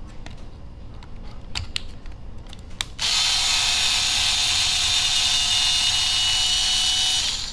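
Small electric hex driver running at a steady speed for about four seconds, backing a screw out of an RC crawler's chassis skid, then stopping suddenly. Before it starts there are a few light clicks of the bit being set into the screws.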